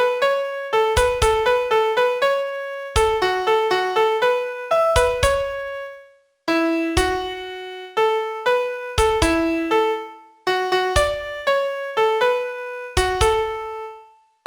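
Piano sound playing the vocal melody of a Mandarin pop song one note at a time, as a guide tone for singing practice. The notes come in phrases, with a short silent break about six seconds in and another near the end.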